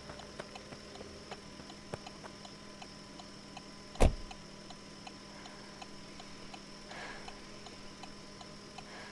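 A car's indicator flasher ticking steadily, about two to three clicks a second, with a faint hum behind it. About four seconds in, a car door shuts with a single loud thud.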